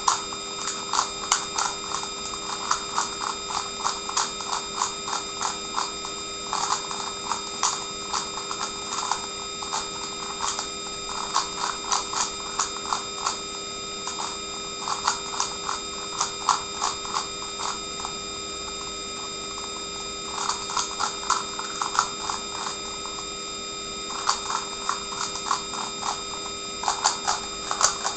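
Plastic Rubik's Cube being turned rapidly by hand during a solve: runs of quick clicking and clacking as the layers are twisted, broken by short pauses.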